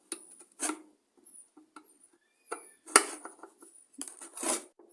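Screwdriver driving the screws of a Briggs & Stratton tank-mounted carburettor down snug into the fuel tank. Scattered light clicks and faint squeaks, with a sharper click about three seconds in.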